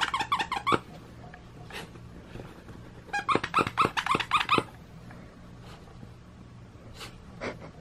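Squeaker inside a homemade fabric star-shaped dog toy squeaking in two quick runs of short, even squeaks, near the start and again about three seconds in.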